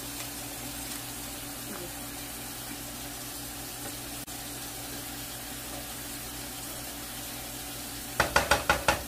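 Pot of spiced water bubbling on the stove, a steady hiss with a low hum under it. Near the end a white slotted spatula stirs it, knocking quickly against the pot about eight times in under a second.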